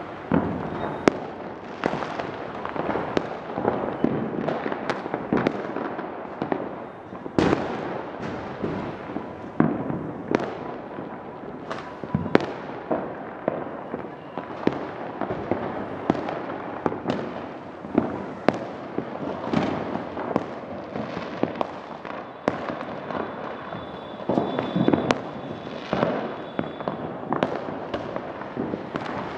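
Firecrackers and fireworks going off all over the neighbourhood: dozens of sharp bangs at irregular intervals over a constant rumble and crackle of more distant blasts.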